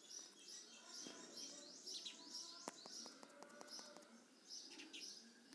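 Faint birdsong: short high chirps repeated two or three times a second, pausing briefly about four seconds in, with a few faint clicks.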